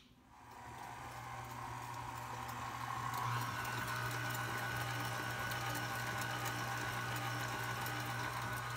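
KitchenAid Artisan stand mixer running steadily with a motor hum and whine, beating chocolate cake batter. It starts up at the beginning and gets louder and higher in pitch about three seconds in, as if turned up a speed.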